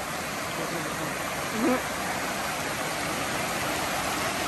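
Shallow creek water rushing and splashing over sandstone shelves in a small cascade, a steady rush. A brief vocal sound about a second and a half in.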